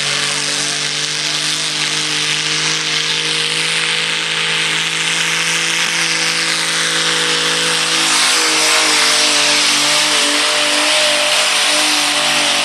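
Pulling tractor's BMW 535i inline-six engine running hard at high revs under load as it drags a weight-transfer sled. Its pitch holds steady, then wavers in the last few seconds.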